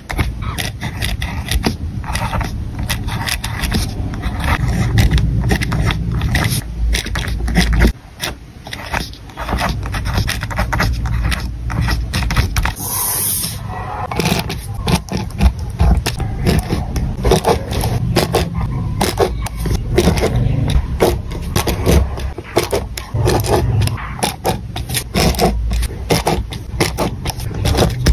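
Close-miked pen writing on paper: a dense run of quick scratching strokes as the tip moves across the sheet, over a low rumble.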